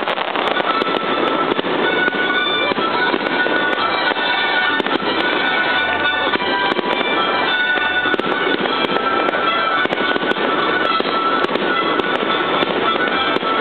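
Large display fireworks bursting and crackling in a dense, steady stream, with music playing over them.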